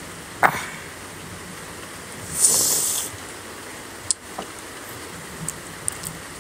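A man hissing air out sharply through pursed lips for under a second, about two and a half seconds in, against the burn of hot chili. A sharp mouth click comes about half a second in and a smaller one about four seconds in.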